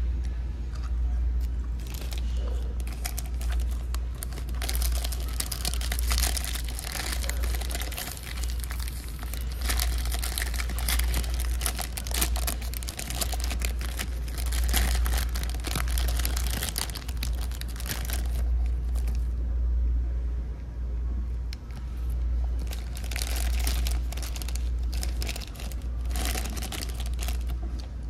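Plastic packet of apple slices crinkling as it is handled and squeezed in the hand, in repeated bursts, with a steady low hum underneath.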